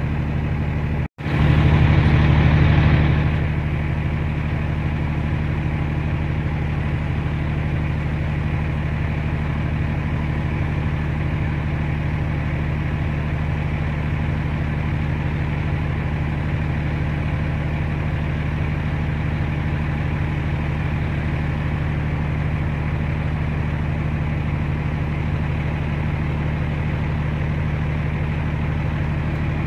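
Vehicle engine idling with a steady low hum. The sound cuts out for a moment about a second in, then runs louder for about two seconds before settling back to the steady idle.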